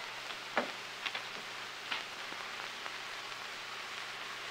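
Steady hiss of an old film soundtrack, with a few faint clicks and pops in the first two seconds.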